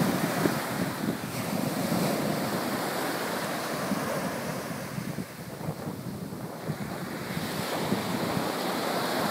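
Sea surf breaking and washing up a sandy beach, a steady rush of water that eases briefly about halfway through, with wind buffeting the microphone.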